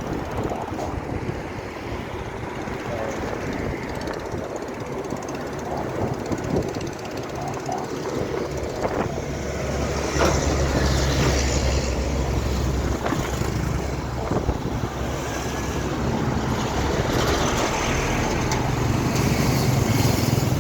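Road traffic with heavy trucks passing close by on a bridge. The low engine and tyre rumble swells about halfway through and again near the end.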